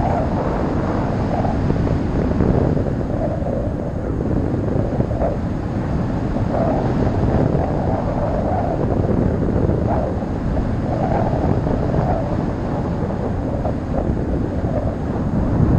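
Wind rushing over the camera microphone in paraglider flight: a steady low buffeting noise.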